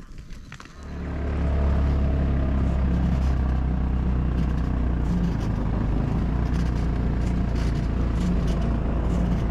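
A vehicle engine comes in about a second in and then runs steadily with a low drone.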